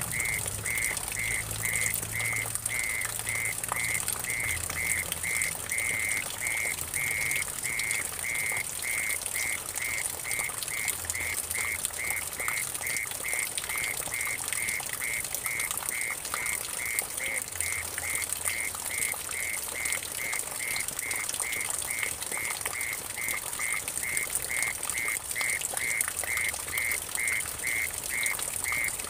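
Mole cricket (orong-orong) singing a steady, evenly pulsed trill, over water trickling and splashing into a shallow puddle.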